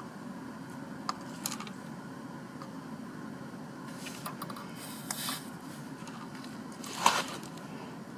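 Small, light clicks and scrapes of hand tools working on a laptop circuit board during soldering. The loudest is a sharp click about seven seconds in. A steady low hum runs underneath.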